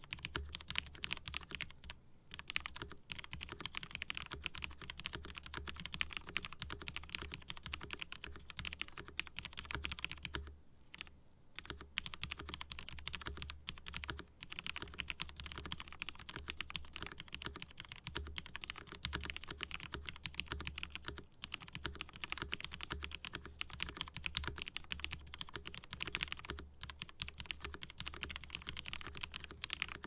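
Rapid typing on a CM Storm QuickFire mechanical keyboard with a steel plate and lubed, retooled Cherry MX Black linear switches: a dense, continuous clatter of keystrokes, with a brief pause about eleven seconds in.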